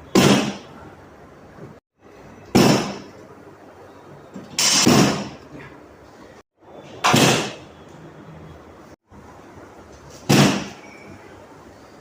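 Five sudden, loud thuds from chiropractic adjustment thrusts, roughly every two to three seconds, each dying away within about half a second. Brief dropouts to silence fall between some of them.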